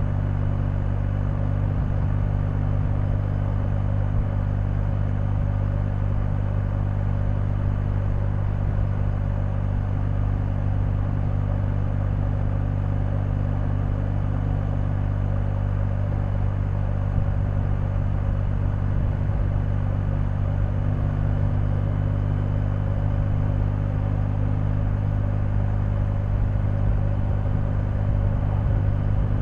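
BMW R1250GS's 1254 cc boxer-twin engine running steadily at an even, unchanging engine speed.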